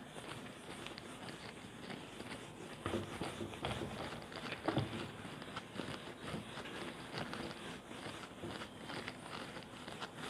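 Whiteboard eraser scrubbing across a whiteboard in quick, uneven strokes, a little louder around the middle.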